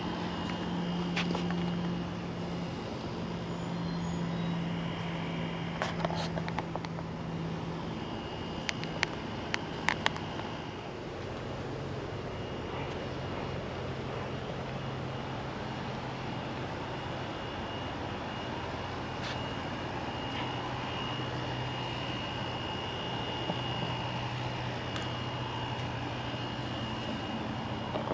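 A steady low mechanical drone from a distant motor. Its pitch drops once, about a third of the way through, and there are a few faint clicks.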